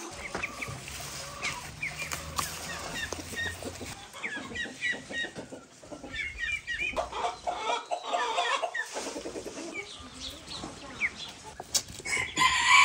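Chickens clucking, with a busier, louder stretch of clucking about seven to nine seconds in.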